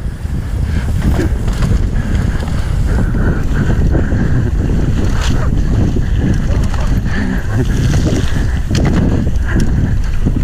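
Wind buffeting a helmet-mounted camera's microphone during a fast mountain-bike descent, with the steady rumble of tyres on a dirt trail and a few short clicks and knocks from the bike.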